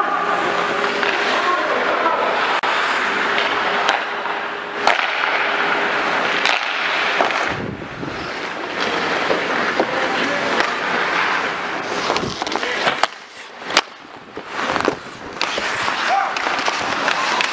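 Ice hockey skate blades scraping and carving on the ice close by, with several sharp clacks of sticks and puck.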